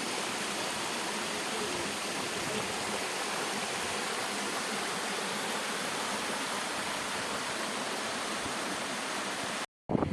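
Steady rush of falling water, an even hiss with no pauses, that cuts off abruptly near the end.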